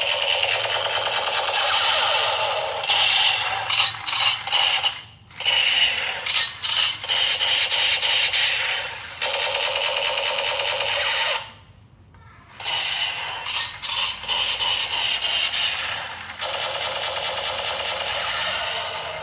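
Battery-powered toy revolver's electronic sound effects playing through its small built-in speaker while the trigger is held and the lit bullet cylinder spins. Stretches of rapid pulsing alternate with steadier stretches, and the sound cuts out twice briefly, about five seconds in and about twelve seconds in.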